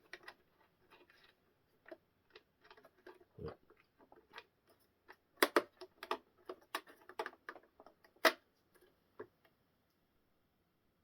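Small plastic parts clicking and clacking as they are handled and pushed into place, irregular, with a cluster of sharper snaps about halfway through.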